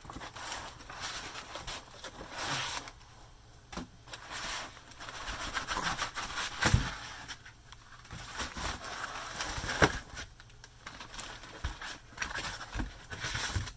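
Cardboard and plastic packaging rustling and scraping as an oscilloscope is pulled out of its shipping box, with a few sharp knocks.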